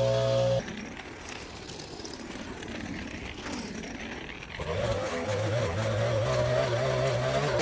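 Background music cuts off about half a second in, and a few seconds later a motor vehicle engine is heard running, its pitch wavering slightly.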